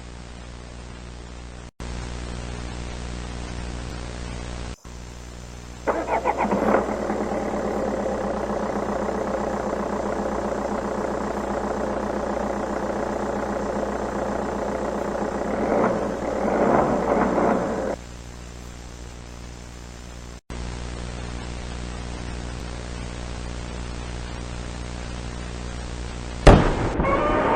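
A steady electrical hum with static, broken by a few very brief dropouts. About six seconds in, a motor-like sound starts with a stuttering onset and runs steadily. It swells with a wobble near the end and cuts off suddenly about twelve seconds later, leaving the hum.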